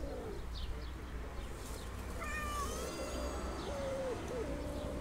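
Cat calls: a drawn-out low yowl falls away just at the start, then short meows about four seconds in.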